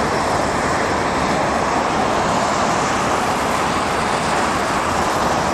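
Steady city road traffic noise, an even wash of sound with no distinct events standing out.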